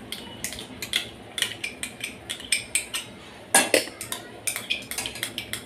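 A steel spoon scraping and clinking against a glass bowl as fresh cream is scraped out into a wok. It makes irregular light clicks and scrapes, with one louder knock about three and a half seconds in.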